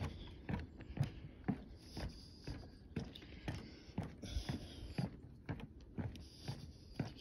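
Footsteps on a wooden boardwalk, at a steady walking pace of about two steps a second.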